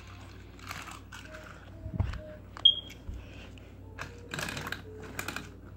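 Handling noise from toy trains and the handheld phone: irregular clicks, knocks and rustles, with a low thump about two seconds in and a sharp click with a brief high squeak just after.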